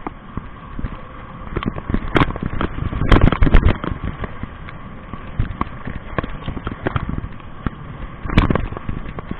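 Home-made 1500 W e-bike rattling and clattering over a rough dirt trail, with a rapid run of knocks and jolts that comes to a head in heavy bangs about three seconds in and again near the end, over the steady whine of the bike's motor.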